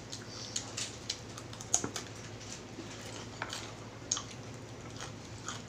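Close-miked eating sounds: scattered soft clicks and crunches of chewing crispy fried chicken skin, with light fork clicks, about a dozen in all.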